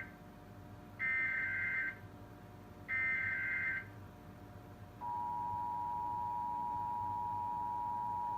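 Emergency Alert System header on a TV broadcast: the last moments of one digital data burst, then two more short buzzing data bursts, each about a second long and a second apart, that open a national EAS test. About five seconds in, the steady two-tone EAS attention signal starts and holds.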